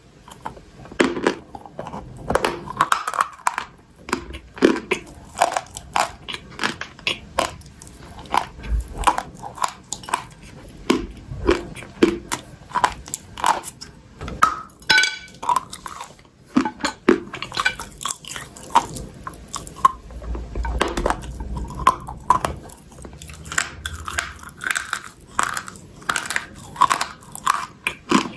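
Close-miked biting and chewing of hard, crunchy chalk-like pieces: a dense, irregular run of sharp crunches.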